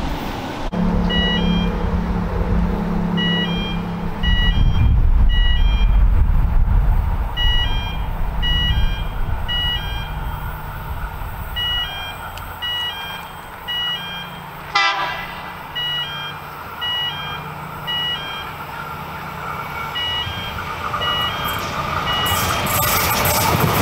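Short high electronic-sounding beeps in pairs repeat about twice a second over a low steady hum, with one quick falling sweep about halfway. In the last couple of seconds the rushing noise of an approaching double-deck electric train grows.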